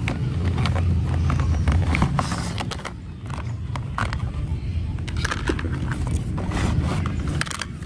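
A cardboard toy box being pulled open and plastic airplane parts drawn out of it: scraping, rustling and clicks. A low rumble runs underneath, louder for the first few seconds.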